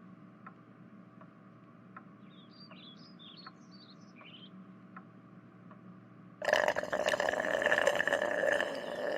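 Faint background with a short run of bird chirps, then, about six and a half seconds in, a much louder cartoon sound effect of water being gulped down.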